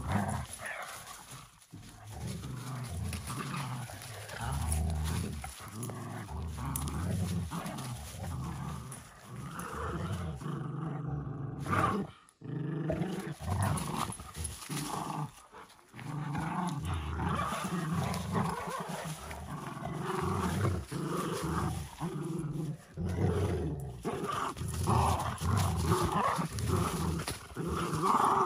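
A miniature schnauzer and a larger white dog growling in play as they tug at a toy together: low, rumbling growls in long runs with a few short breaks.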